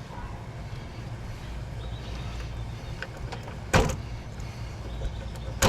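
Two sharp snaps a little under two seconds apart, the first the louder, as wiring connectors are pulled off an air conditioner's control board, over a steady low hum.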